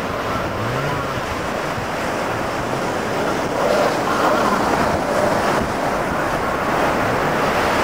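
Wind rushing over the microphone and the wash of surf around a jet ski riding through waves, with the engine note faintly rising and falling under the noise.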